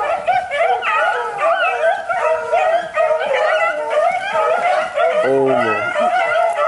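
A pack of beagles baying in full cry as they trail a rabbit by scent, many voices overlapping without a break. A deeper call falls in pitch about five seconds in.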